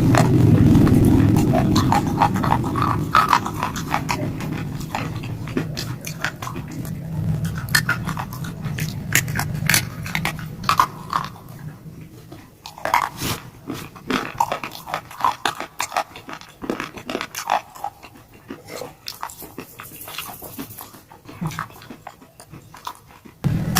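Close-up chewing of a heart-shaped piece of shalestone: dense, sharp crunching and cracking, with a low rumble in the first several seconds that fades away.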